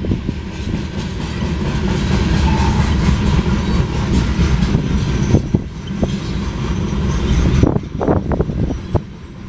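Freight train's covered hopper cars rolling past at a grade crossing: a steady rumble with wheels clattering over the rail joints. The rumble eases about three-quarters of the way through, leaving separate wheel clunks.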